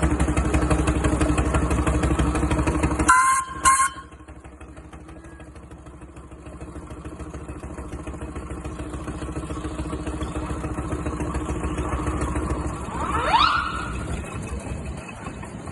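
A small engine running with a fast, even beat, then two short, loud whistle blasts about three seconds in. After the blasts the engine sound drops to a quieter running that slowly builds, with a brief rising tone near the end.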